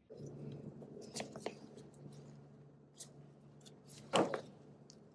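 Light metal clicks and handling noises of a band clamp being fitted by gloved hands onto a CV axle boot, with a louder clack about four seconds in, over a low steady hum.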